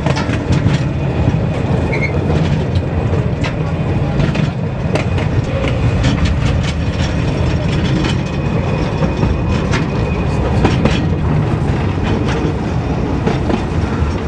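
Narrow-gauge train carriage rolling along the track: a steady low rumble with irregular clicks and clacks from the wheels on the rails, heard from inside an open-sided car.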